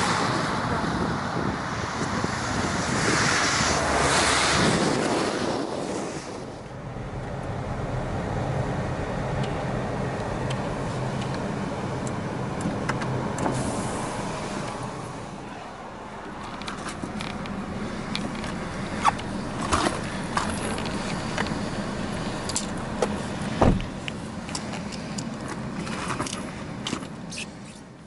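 A car running with a steady low hum, loud wind noise over it at first, then scattered clicks and knocks with one loud thump about two-thirds of the way through.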